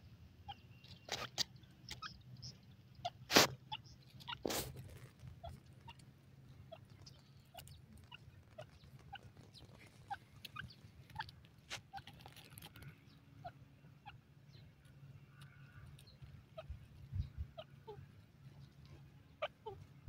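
Grey francolin pecking and foraging in dry soil: scattered soft ticks and clicks, with a few louder sharp knocks in the first five seconds.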